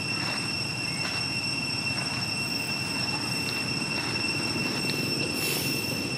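Steady outdoor background noise, a low rumble with a constant high-pitched whine over it, and a brief hiss near the end.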